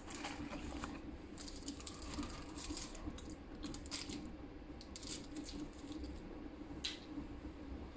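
Chocolate's paper wrapper crinkling in the hands as it is unwrapped: short, irregular crackles and clicks over a steady low hum.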